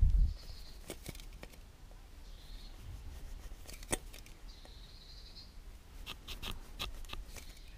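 Swiss Army knife awl punching small jet holes into the thin aluminium of a drink can: scattered small clicks and short scratchy scrapes as the point goes through the metal, with several clicks in quick succession near the end. A dull handling bump at the very start.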